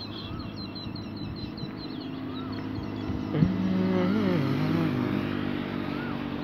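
Motorcycle engine running steadily, with small birds chirping. About halfway through, a louder pitched sound wavers up and down for a second or two.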